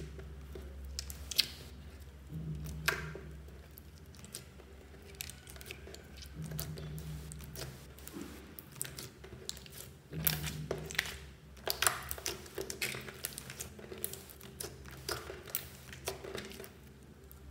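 Clear slime packed with small plastic beads being squeezed and stretched by hand, giving irregular sticky clicks and pops that come thicker and louder about ten seconds in.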